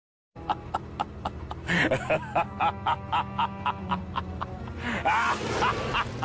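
A short comedic music clip starting after a brief silence: a quick steady beat of about four clicks a second, with two brief stretches of sliding, squawk-like vocal sounds about two and five seconds in.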